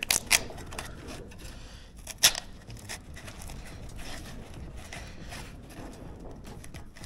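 Two sharp knocks about two seconds apart, with fainter clicks and light scraping, as a flush-mounted electrical box is adjusted in its hole in the wall.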